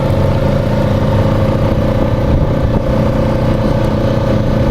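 Engine of a small off-road farm vehicle running steadily at an even speed while riding, a low rumble with a constant whine above it.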